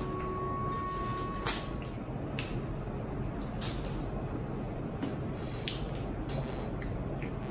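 Wooden chopsticks clicking against a small plate several times as a piece of sweet potato yokan is cut and lifted, the loudest click about one and a half seconds in. A steady background hum runs underneath.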